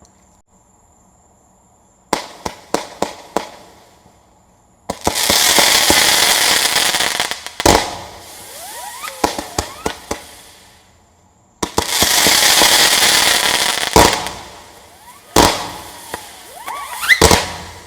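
A 200-gram, 40-shot Fire Factory zipper cake firing: a quick run of sharp launch pops, then two long stretches of loud hissing, with single bangs in between. Near the middle and again near the end, zippers whistle as they go up and come down in pitch.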